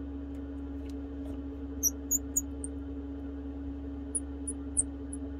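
Steady low hum with a few faint ticks from a small screwdriver driving tiny screws into an iPhone 11 screen's earpiece bracket. Short high-pitched chirps come in two clusters, about two seconds in and again near the end.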